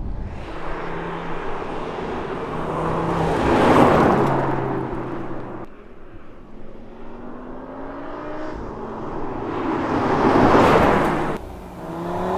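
Audi TT RS turbocharged 2.5-litre five-cylinder engine being driven hard past the microphone. It swells up twice, loud with road and wind hiss at each peak, and each time cuts off sharply. In between and near the end the engine note climbs steadily as the car accelerates.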